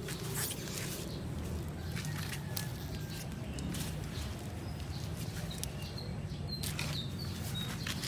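Packing sheet rustling and crinkling as it is pulled off the top of a new washing machine, with a denser burst of crinkling about seven seconds in.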